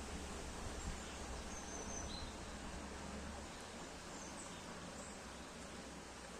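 Forest ambience: a steady hiss with a few faint, short, high bird chirps scattered through it, and a low rumble that stops about halfway through.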